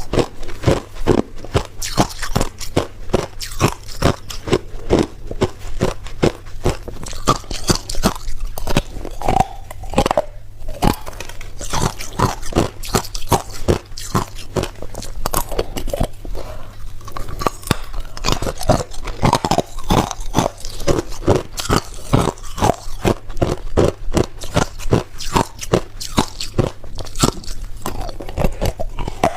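A person biting and chewing ice, with rapid, sharp crunches several times a second as the ice cracks between the teeth.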